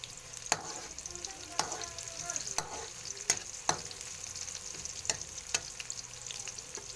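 Chopped garlic and onion sizzling in hot oil in a wok, with a spatula scraping and clacking against the pan at uneven intervals as they are stirred.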